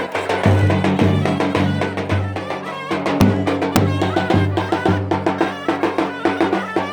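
Halay folk dance music: a steady drum beat with a wavering melody played over it.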